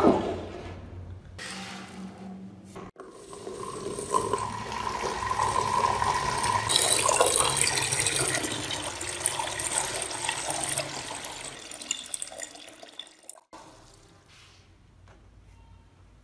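A stream of water pouring into a plastic storage tub and filling it. The splashing builds over several seconds, then fades and stops a couple of seconds before the end.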